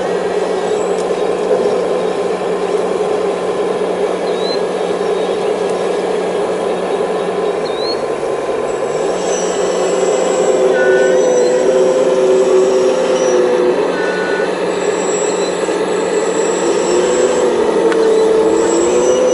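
Full-size excavator's diesel engine running steadily under load while digging hard pan, with a pitched whine that sags and recovers a few times as the hydraulics are worked.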